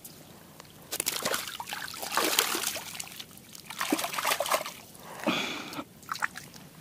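Water splashing and sloshing in irregular bursts, starting about a second in, as water is stirred by hand or fish at the water's edge.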